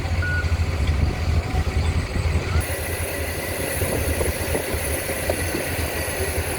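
Heavy vehicle engine idling with a steady low rumble. A reversing alarm beeps once right at the start.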